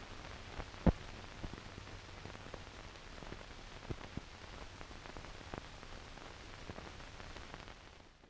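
Faint steady hiss full of scattered clicks and pops, with one sharper pop about a second in: crackling surface noise of a worn 16mm film print. It stops just before the end.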